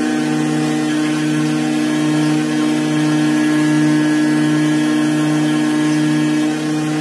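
Workshop machine's motor running steadily: an even, loud hum with a slow regular throb.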